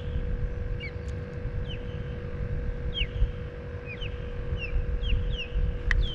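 Wind buffeting the microphone with a steady low rumble, while a bird calls over and over in short, quick falling chirps.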